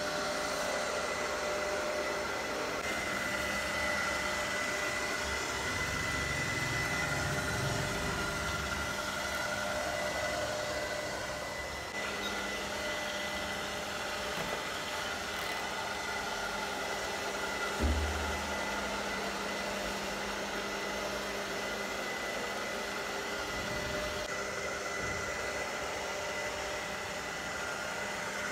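ILIFE V5s Pro robot vacuum cleaner running in sweeping mode: a steady whirr of its suction fan and brush motors with a few thin, steady whining tones. A brief low thump about two-thirds of the way through.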